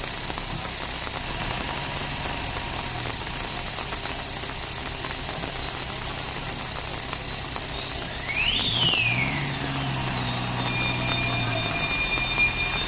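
Heavily loaded lorry's diesel engine running at low revs, getting louder about eight seconds in as the truck creeps forward, over a steady hiss of rain. A short rising-then-falling whistle sounds just after the engine picks up.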